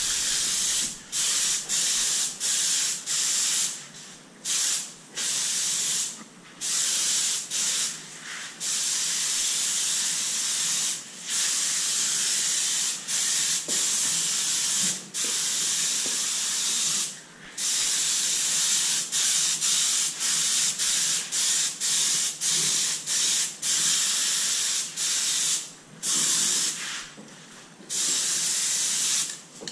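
Hand spray bottle misting a ceramic coating onto a jet ski's surfaces: repeated bursts of hiss, some brief and some held for a couple of seconds, with short pauses between sprays.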